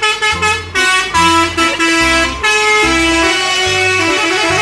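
Concrete mixer truck's multi-tone musical horn playing a quick tune of stepped notes.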